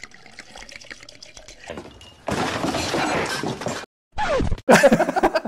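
Edited-in sound effect: a loud, noisy burst lasting about a second and a half, cut off abruptly, followed by a voice near the end.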